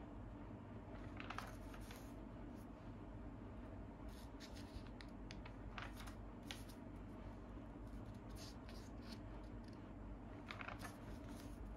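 Paper pages of a comic magazine being handled and turned by hand: short, faint rustles every second or two over a steady low hum.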